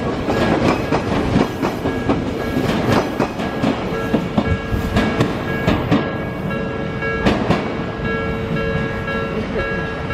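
Odakyu train wheels clacking over rail joints as a train passes the level crossing, the clacks dense at first and thinning out about four seconds in. Under them a level-crossing warning bell rings in even repeats, heard plainly once the clacks thin.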